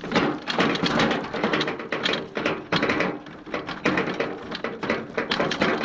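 Wheelbarrow loaded with stacked empty plastic buckets being pushed along a rough dirt track, the buckets knocking and rattling in the tray in a run of irregular clatters.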